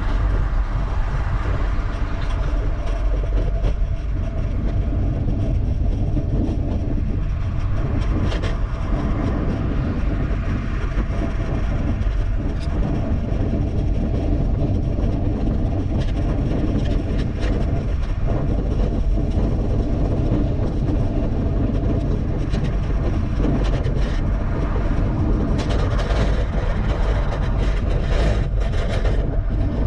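Steady wind rush and rumble on the microphone of a camera on a moving bicycle, mixed with tyre and road noise and a few light clicks from the bike.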